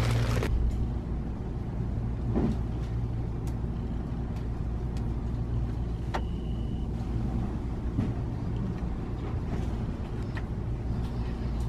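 Steady low background hum of a shop interior, with a few faint clicks and a short high beep about six seconds in.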